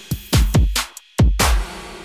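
Electronic intro music in a break: the bass drops out, leaving a few sharp drum hits and a brief silence about a second in.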